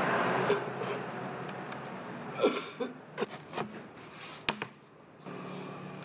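Plastic laptop casing being handled on a table: a scrape and a series of sharp clicks and knocks between about two and four and a half seconds in, as the laptop is turned over and its lid opened. A steady hum returns near the end.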